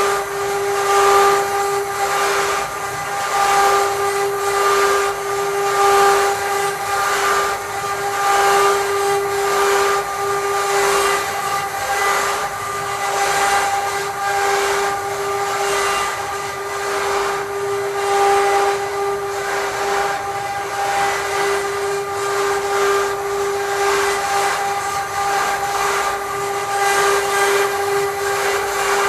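CNC wood router running: a steady whine from the spindle over the hiss of the bit cutting wood, the hiss swelling and fading every second or two.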